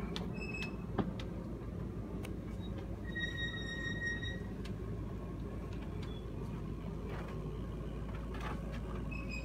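Steady low mechanical hum with a few faint clicks, and a brief high-pitched squeak about three seconds in.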